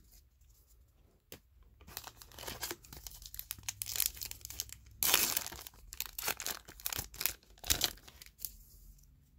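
A foil trading-card pack wrapper being torn open and crinkled, a run of ripping and rustling that is loudest about five seconds in.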